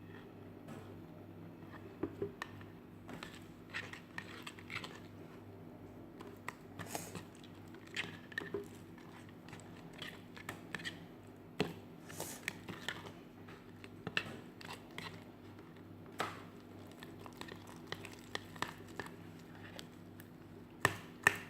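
A spatula stirring and folding glue slime in a container as it thickens and clumps with added activator: irregular sticky clicks and squelches, over a faint steady hum.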